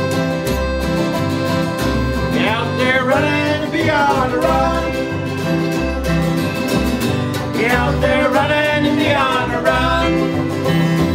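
Acoustic folk band playing with strummed guitar and picked banjo over a steady beat, a melody line rising and falling in two phrases.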